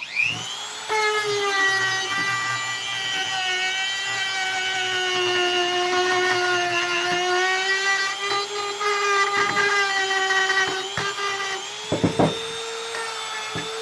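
Tacklife handheld rotary tool switched on, its motor spinning up with a quickly rising whine, then running steadily at high speed with small wavers in pitch as a sanding attachment works a steel hammer head. A few brief knocks near the end.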